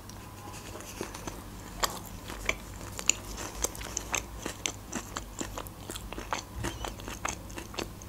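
Close-miked chewing of a bite of a KFC Twister wrap: irregular mouth clicks several times a second, the sharpest between about two and three seconds in.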